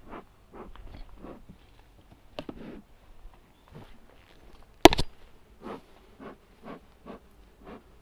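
Footsteps, about two a second, with one sharp, much louder knock about five seconds in.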